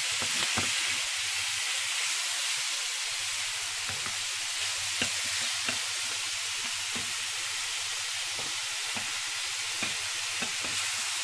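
Peeled shrimp sizzling steadily as they fry in oil in a stainless steel pan, with scattered light clicks of a utensil stirring them.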